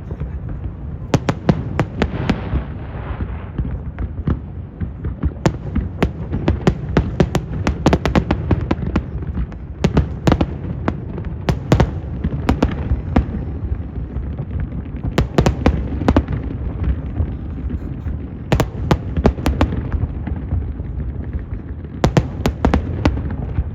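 Aerial fireworks going off in a continuous barrage: many sharp bangs, some in quick clusters, over a steady low rumble of booms.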